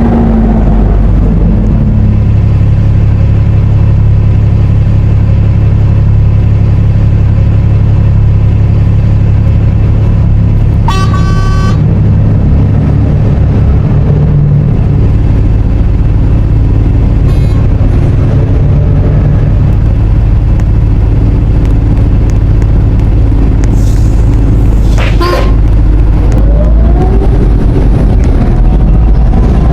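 Temsa Avenue LF bus engine running with a steady low hum, its horn giving one short honk about eleven seconds in and a fainter toot about six seconds later. Near the end a rising whine comes in.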